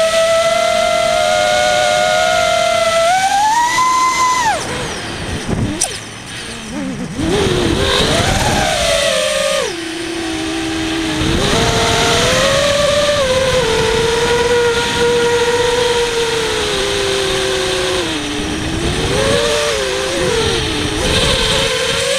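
Brushless motors and 5-inch props of an FPV racing quadcopter whining, the pitch rising and falling with the throttle. About four seconds in the whine drops away and comes back a few seconds later, as when the throttle is cut and punched again.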